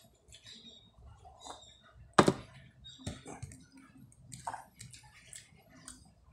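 Close-up mukbang eating sounds: chewing, lip smacks and small wet clicks as rice and milkfish are eaten by hand, with one louder thump about two seconds in.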